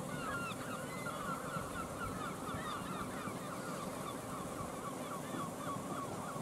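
A flock of birds calling: many short overlapping calls, several a second, that run on without a break over a low steady rumble.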